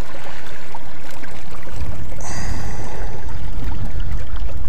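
Wind buffeting the microphone on an open boat: a loud, steady low rumble that grows stronger about two seconds in, with a brief stretch of hiss over it.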